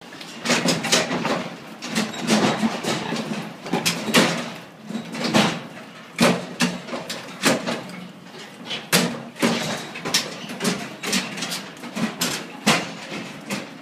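Piglets' hooves clattering on a metal slatted pen floor and against steel bars: a quick, irregular run of sharp knocks and clanks.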